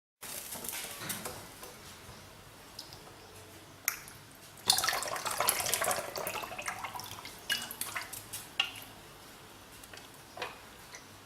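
Water splashing and dripping with light metallic clinks. A sudden louder burst of splashing hiss starts about five seconds in and lasts about two seconds, and a few sharp clicks follow.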